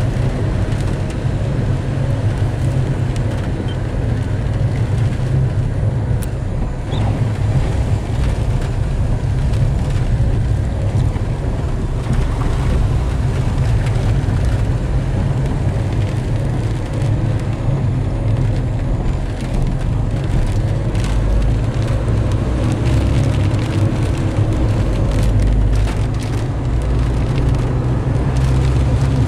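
Steady low rumble of a vehicle driving on a wet, flooded road, heard from inside the cab: engine and tyres running on wet tarmac, with water hissing and spraying under the wheels and scattered light ticks from about halfway on.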